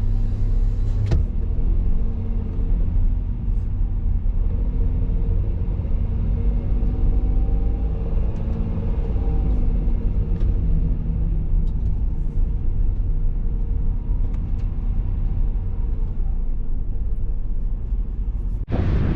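Steady low rumble of a car in motion heard from inside, with a constant engine hum and a few faint ticks. Near the end it cuts abruptly to wind buffeting the microphone.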